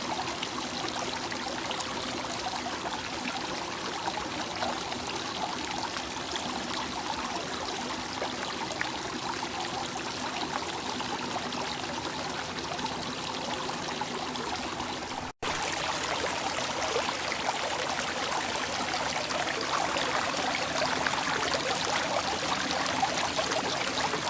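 Flowing water running and splashing steadily. It cuts out for an instant about fifteen seconds in, then carries on a little louder.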